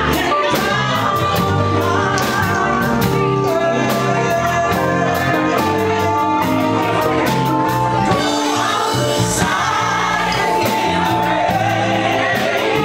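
Live band music: women singing over electric bass, electric guitar, a drum kit and keyboards, with a steady beat.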